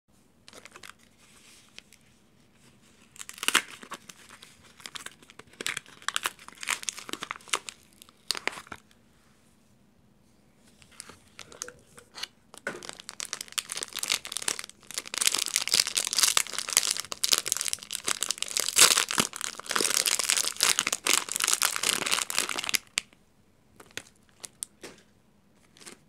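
Plastic film wrapper on a bar of soap crinkling and tearing as hands unwrap it: short bursts of crinkling at first, then about ten seconds of dense, steady crinkling, and a few soft clicks near the end.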